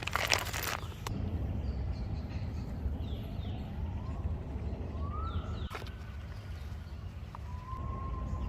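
Crunching for about a second, then a distant motorboat engine: a steady low rumble with a faint whine that rises and then holds steady.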